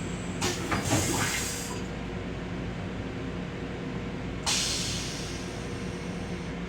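Hissing spray from a Long Island Rail Road M7 railcar restroom fixture, twice: a short burst with a few knocks near the start, then a hiss that starts suddenly about four and a half seconds in and fades. Under it runs the steady hum of the train.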